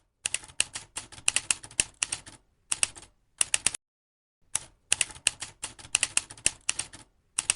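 Rapid keystrokes of typing in short runs of clicks, with a pause of about a second midway.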